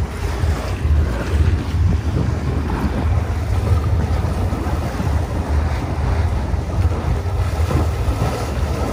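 Wind buffeting the microphone aboard a fishing boat at sea, a steady low rumble with the wash of the sea beneath it.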